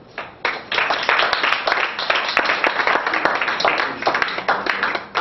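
Audience applauding, starting with a few claps just after the start and quickly filling into dense clapping that thins out near the end.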